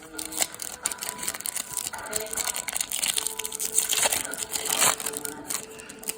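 Foil Pokémon booster pack wrapper crinkling and tearing as it is opened by hand, a dense run of crackles and rustles.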